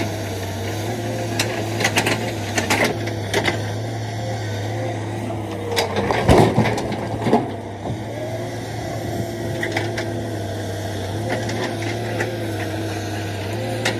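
Heavy construction machine's diesel engine running steadily, with scattered metallic knocks and clanks. A louder rumbling crash comes about six seconds in, typical of a bucket load being dug or dumped.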